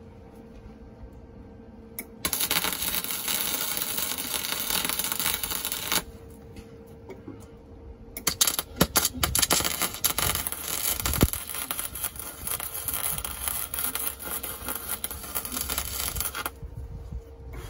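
Wire-feed welder tack-welding steel cross braces onto a car's floor: two runs of steady crackling hiss, the first about four seconds long starting two seconds in, the second about eight seconds long and rougher, with sharp pops near its start.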